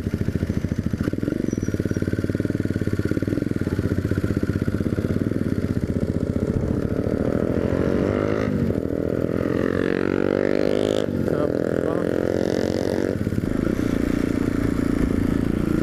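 Yamaha XT 250's single-cylinder four-stroke engine running under way on a freshly rebuilt bike. Its note climbs in several rising sweeps about halfway through as it accelerates through the gears, then settles to a steady cruise.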